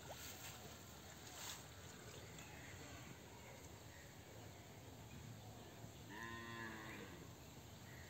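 Faint outdoor background with a single cow moo about six seconds in, lasting about a second.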